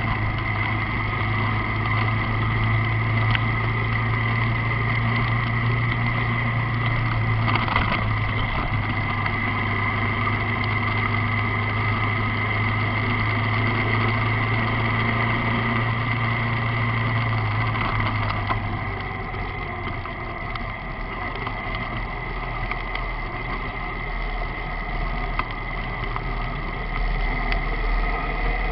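Motorcycle engine running steadily under way, with road and wind noise on a bike-mounted action camera. The low engine note drops away about two-thirds of the way through.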